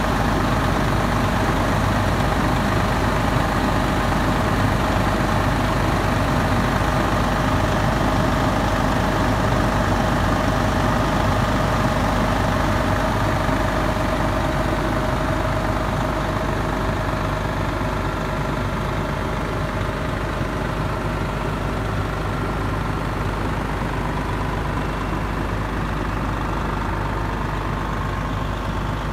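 Diesel engine of a 2001 Pierce Dash fire pumper idling steadily, with a low hum and a constant mid-pitched drone, growing slightly fainter over the second half.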